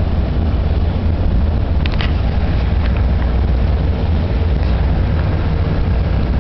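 Wind buffeting the microphone in a steady low rumble. Under it runs a faint, steady engine hum from fast boats far out on the river.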